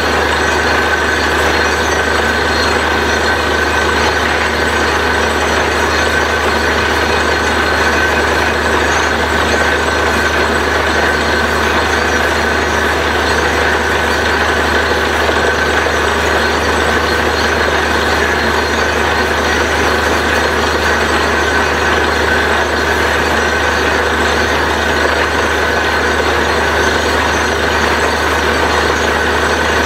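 Truck-mounted borewell drilling rig running at work: a loud, steady mechanical drone from its engine and compressor, with a constant noisy rush over a low hum.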